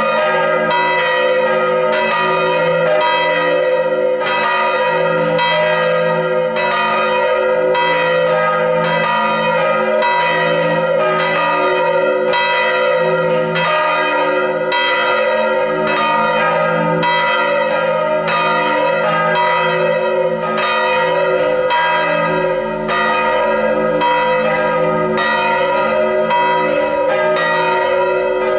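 Swinging bronze church bells rung in full peal (a volée), their strokes following one another steadily and overlapping into a continuous ringing. This is the peal rung before Sunday service.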